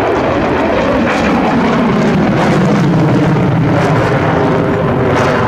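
Twin-engine Sukhoi Flanker-type fighter jet flying aerobatic manoeuvres, its jet engines loud and steady throughout, a dense rushing noise with a faint low hum underneath.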